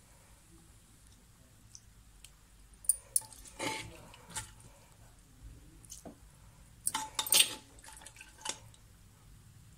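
Steel serving spoon clinking and scraping against a steel biryani pot as chicken masala gravy is spooned onto the rice, with the wet gravy dropping onto the rice layer. A few short bursts of clinking, the loudest about seven seconds in.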